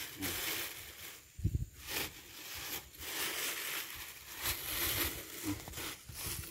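Plastic bags rustling as they are handled, in short irregular crackles, with a low bump about a second and a half in.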